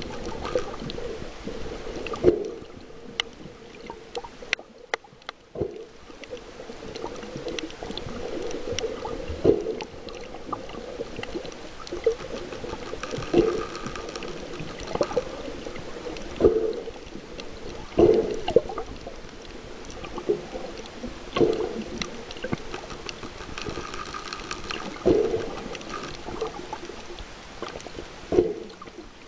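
Underwater sound picked up by a snorkeller's camera: muffled water noise with a short surge every two to four seconds.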